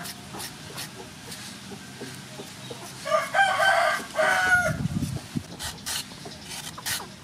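A rooster crows once, about three seconds in, a call of about a second and a half with a short break near its end. Faint short clicks run under it.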